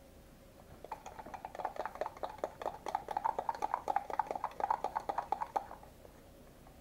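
Spoon stirring dish soap and salt in a small cup: a fast, even run of clicks and taps against the cup's sides, starting about a second in and stopping near the end.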